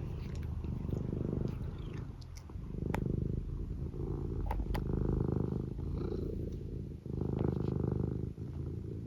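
Domestic cat purring close up, a continuous low buzzing purr that swells and eases with each breath, about every second and a half. A few faint clicks sound over it.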